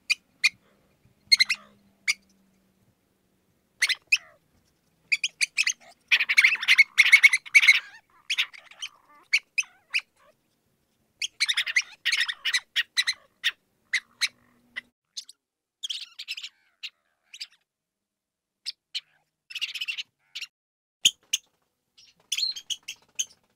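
Mouse squeaking: short, high-pitched squeaks coming in quick runs with short pauses between them.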